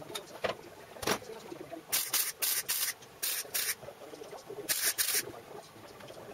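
MIG welder laying short tack welds on the car's steel inner sill and floor pan: seven brief hissing bursts in quick groups of three, two and two, starting about two seconds in.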